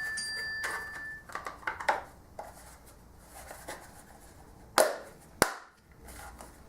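Handling noises from the parts of a new random orbital sander. A clear ringing ping fades out within the first second, followed by scattered light clicks and two sharp knocks close together a little before five seconds in.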